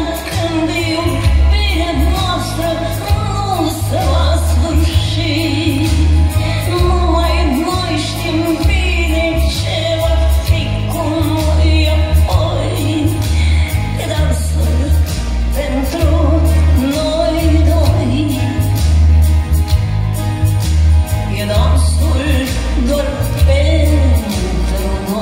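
A woman singing a pop song live into a microphone, backed by a band with drums, bass and guitars keeping a steady beat.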